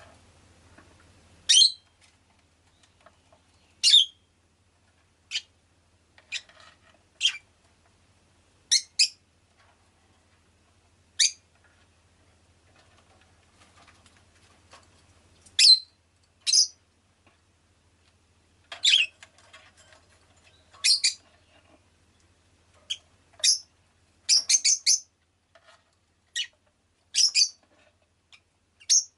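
Rosy-faced lovebird calling in short, sharp, high chirps, one every second or two, with a quick run of several chirps late on.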